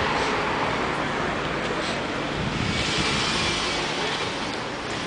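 Street traffic noise: a steady low rumble of cars, with a louder hiss that swells about two and a half seconds in and fades a second or so later.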